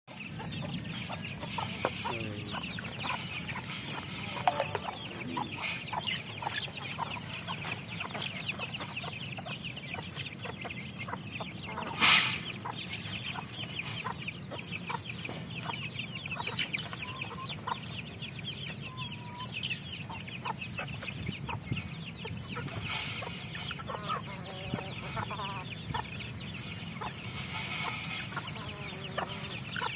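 A flock of village chickens clucking and cheeping without pause as they feed at a trough, with many short calls overlapping. There is one short, loud burst of sound about twelve seconds in.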